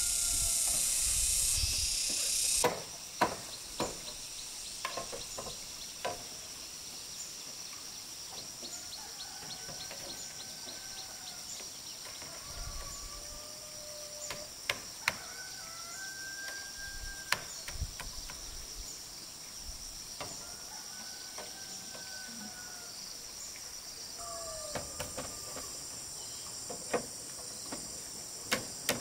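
Outdoor farm ambience: a loud steady hiss that cuts off suddenly about three seconds in, then a steady high drone of insects with birds calling now and then. Scattered sharp knocks of wood and bamboo poles being handled on the frame.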